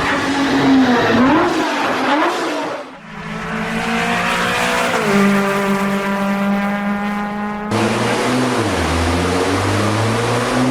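GT sports car engine running and revving across a few spliced recordings: the pitch wavers up and down, drops a step about five seconds in, and climbs steadily near the end as the car accelerates.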